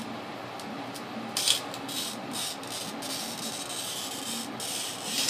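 Cheap Harbor Freight wheel glass cutter scoring a line across mirrored glass along a T-square: a high, hissing zipping sound that starts about a second and a half in and lasts about four seconds. The zip is the sign of the right pressure for a proper score.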